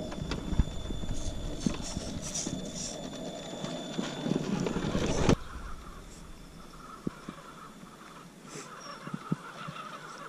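Axial SCX10 RC rock crawler picking its way over loose gravel and rocks: stones crunching and knocking under the tyres, with a thin steady high whine from the truck's drivetrain. About five seconds in, the sound drops suddenly to a quieter outdoor background with only a few light knocks.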